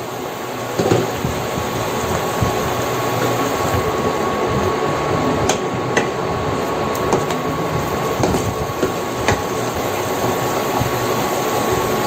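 Sauce with tomatoes and salted black beans sizzling and bubbling in hot oil in a stainless steel pan, a steady hiss. A wooden spatula stirs it, knocking against the pan a few times.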